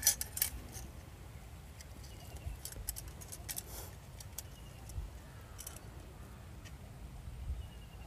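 Small metal spring snap trap being handled and set by hand: a sharp metallic click right at the start, then light scattered clicks and rattles of its wire bar and spring, over a low steady rumble.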